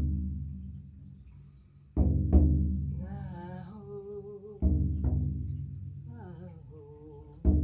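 Shamanic frame drum struck in slow paired beats, like a heartbeat, about every two and a half seconds, each stroke ringing out deep and fading. Between the beats a voice hums soft, wavering notes.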